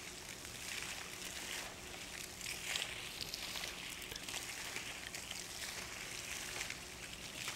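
Quiet outdoor background: a steady airy hiss with faint scattered ticks and rustles.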